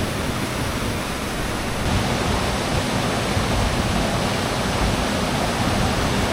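Waterfall: a steady, loud rush of falling water, growing a little louder about two seconds in.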